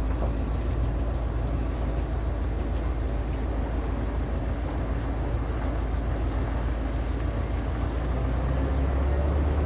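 Truck engine running with a steady low drone and rumble.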